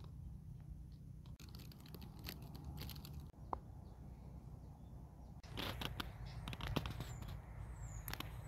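Faint outdoor garden ambience: a steady low rumble with scattered soft clicks and rustles, and a few short, high, falling bird chirps near the end.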